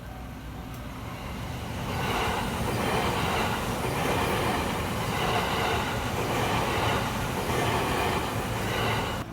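JR Hanwa Line train passing over a level crossing, its wheels running on the rails. The sound builds over the first two seconds, then stays loud with swells as the cars go by, and cuts off suddenly near the end.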